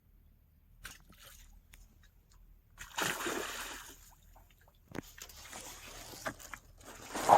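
Water splashing and sloshing at the river: one splash about three seconds in, then more splashing building to a loud one at the very end.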